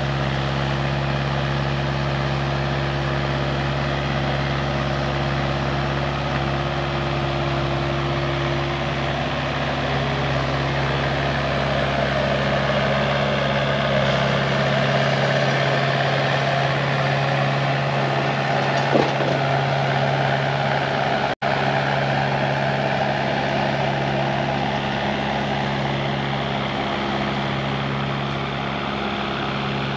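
Kubota excavator's diesel engine running steadily while the machine works, with a level engine hum and no change in speed. The sound breaks off for an instant about two-thirds of the way through.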